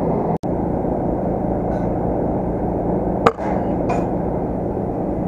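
A single sharp air-rifle shot about three seconds in, over a steady mechanical drone with a low hum.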